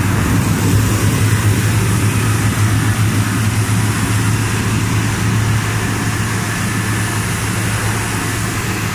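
Rice mill machine running steadily under load: a loud, constant low motor hum with a steady hiss of rice grain passing through and pouring from the outlet.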